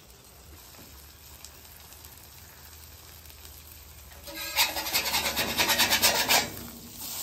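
Metal spatula scraping across the steel cooking surface of a flat-top griddle in quick rasping strokes for about two seconds, starting about four seconds in.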